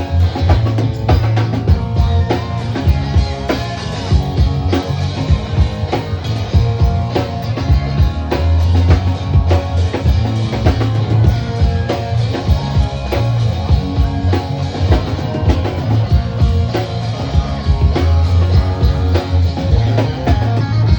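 Rock band playing live: guitar over a driving drum kit, with regular drum hits and a heavy low end throughout.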